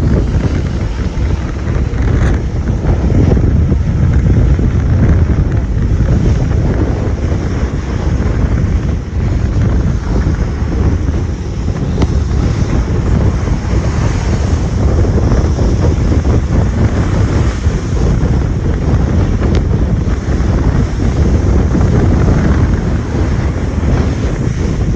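Strong wind buffeting the microphone over the rush of rough seas, a steady low rumbling noise.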